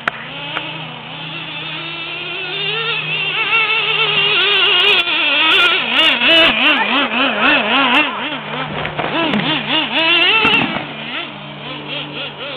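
Nitro engine of a Traxxas S-Maxx RC monster truck running and revving hard, its high whine rising and wavering in pitch as the throttle is worked. It grows louder through the middle and drops off about two seconds before the end.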